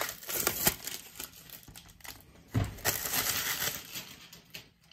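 Plastic shrink wrap crinkling and tearing as it is peeled off a large hardcover book, in irregular crackling bursts that die away near the end.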